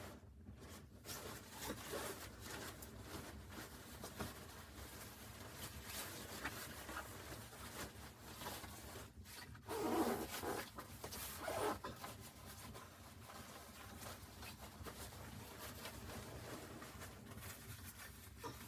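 Faint rustling and rasping handling noises, with louder bursts about ten seconds in and again shortly after.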